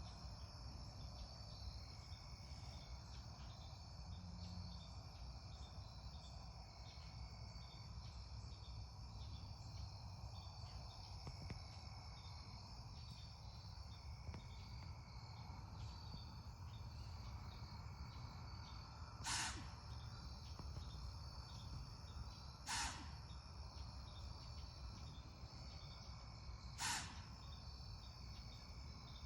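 Three sharp sneezes, each a short blast of air about three to four seconds apart, starting about two-thirds of the way in, over a steady chorus of crickets and other insects.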